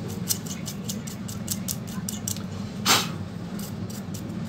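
Small clicks and taps of pliers working on a Dell Inspiron 1545 laptop's cooling fan, which is being bent so its blades stop rubbing. One short, louder scrape comes about three seconds in, over a steady low hum.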